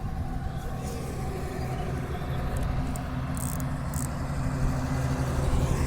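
An engine running steadily, growing louder toward the end, with a few faint ticks in the middle.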